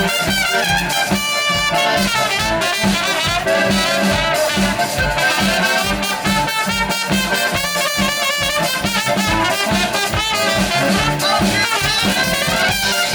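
Upbeat brass-band music with a fast, steady beat, trumpets leading: an instrumental stretch of a Balkan-beat style song that was sung in German and English just before.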